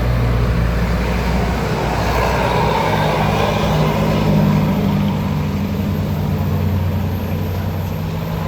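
A large bus's engine running as it passes close by, with tyre and road noise swelling a few seconds in and then easing off.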